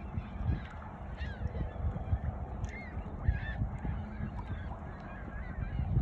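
Waterfowl calling, with several short goose-like honks over a steady low rumble.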